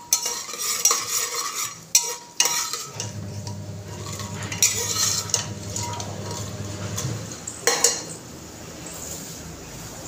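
A steel ladle scrapes and clinks against the inside of a pressure cooker as cashews are stirred, with a few sharp scrapes standing out, over the sizzle of the nuts frying in hot ghee.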